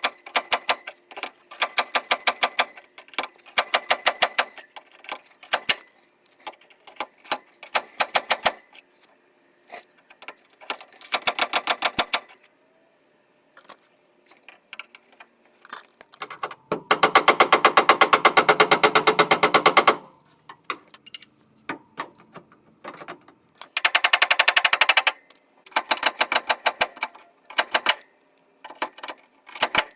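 Rapid mechanical clicking in repeated short bursts, with one longer, louder run about two-thirds of the way through that has a low steady hum beneath it, as from a powered tool.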